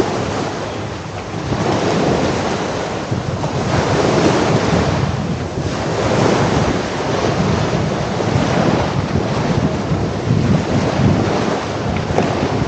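Sea waves washing onto a sandy beach, the surf rising and falling every few seconds, with wind buffeting the microphone.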